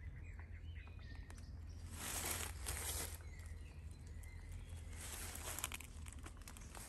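Quiet woodland ambience: faint bird calls, with short rustles about two seconds in and again around five seconds, over a low steady rumble.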